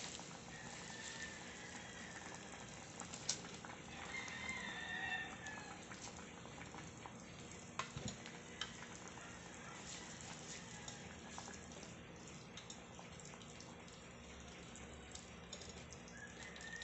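Pot of chicken broth simmering faintly on the stove, with a few light knocks as bitter melon leaves go into the pot and a ladle stirs them in.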